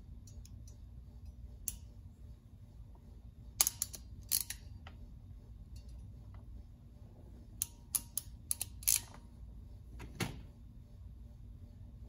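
Weather Pack terminal crimping pliers clicking in quick runs of several clicks as they are squeezed shut on a terminal, the crimp done in stages. A heavier knock comes about ten seconds in.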